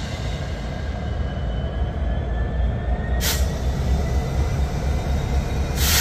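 EMD SD70M diesel-electric locomotive with a 16-cylinder 710 prime mover, rumbling steadily as it creeps ahead, with a faint whine that rises slightly in pitch. Two short hisses of air come about three seconds in and at the end.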